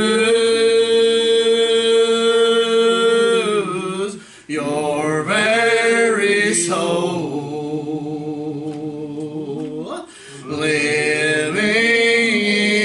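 A man's voice singing a gospel song, holding long drawn-out notes, with two brief breaks about four and ten seconds in.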